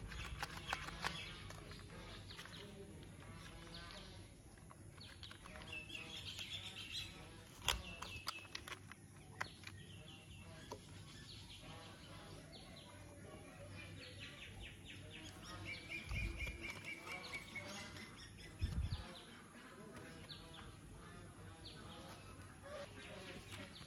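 Hard plastic toy parts clicking and knocking as they are handled and pulled apart, with a couple of soft thumps as pieces are set down. Faint bird chirps are heard in the background.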